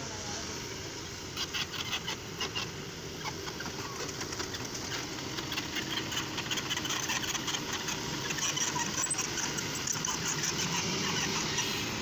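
Kobelco SK220XDLC crawler excavator's diesel engine running under load while the machine works, growing slowly louder, with many rapid metallic clicks and clanks through it.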